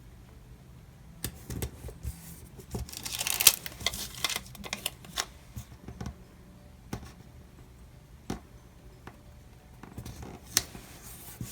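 Paper stickers being handled, peeled and pressed onto a planner page: rustling with a scatter of light taps and clicks, busiest about three to five seconds in.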